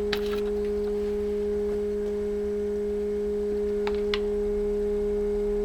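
Stand mixer running, turned up, its whisk attachment beating egg whites to a meringue: a steady hum. A couple of faint clicks come about four seconds in.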